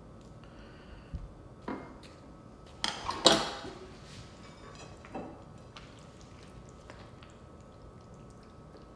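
Metal serving utensils knocking and scraping against plates and serving dishes while food is dished up: a few separate clinks, the loudest cluster about three seconds in.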